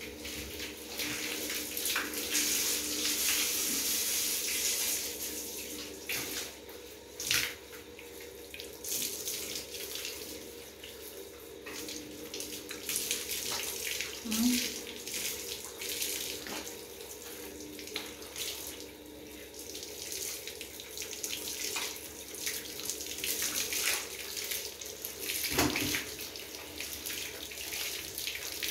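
Water spraying from a handheld shower head onto a wet golden retriever's coat: a steady rush that swells and dips as the spray is moved over the dog.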